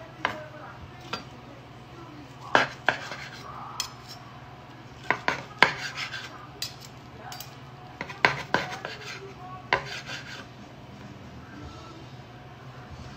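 Metal knife and fork clinking and scraping while cooked chicken is cut up, in sharp, irregular clicks a second or so apart that thin out near the end. A steady low hum runs underneath.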